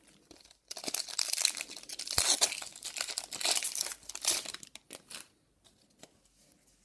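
A foil booster-pack wrapper for Magic: The Gathering cards being torn open and crinkled, starting just under a second in and lasting about four seconds, then dying away to faint rustles.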